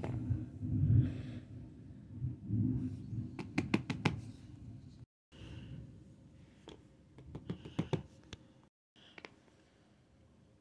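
Phone cases being handled and set down on a spiral notebook: low handling rumble with light clicks and knocks of plastic and silicone, in quick clusters about three and a half to four seconds in and again around eight seconds.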